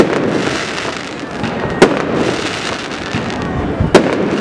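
Aerial fireworks shells bursting: three sharp bangs, at the start, about two seconds in and near the end, over steady background noise.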